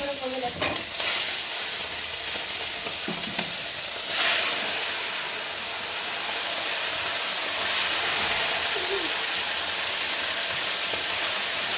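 Chicken pieces frying in hot oil with caramelising sugar in a pan, a steady loud sizzle that swells briefly about four seconds in.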